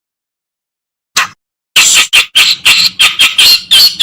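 Reed warbler (kerak basi) singing. One short note comes about a second in, then from near two seconds a loud, fast run of repeated chattering notes, about four a second.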